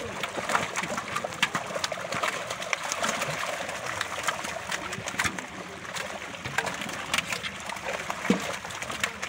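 Water splashing and churning as a dense catch of carp thrash in a drawn-in fishing net in shallow pond water, with many quick, irregular splashes.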